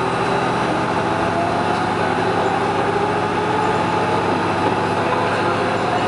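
Heisei Chikuho Railway diesel railcar running steadily, its engine hum laid over wheel and rail noise.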